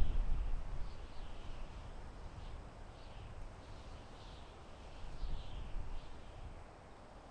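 Wind gusting through a forest with a low rumble, strongest at the start, easing off, then gusting again about five seconds in. Birds call over it throughout in short falling chirps.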